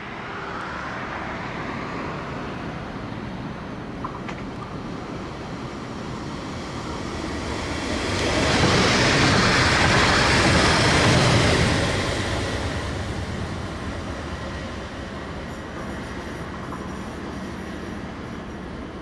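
A Stadler FLIRT electric multiple unit (class 428) passes by on the track: its wheel-and-rail rolling noise builds and is loudest for a few seconds in the middle as the train goes past close by, then fades as it moves away. A single sharp click comes about four seconds in.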